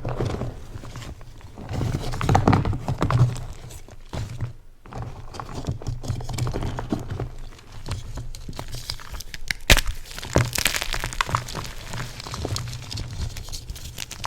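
Yellow-dyed BSN gym chalk being crushed, a dense run of crunching and crumbling, with one sharp crack about ten seconds in.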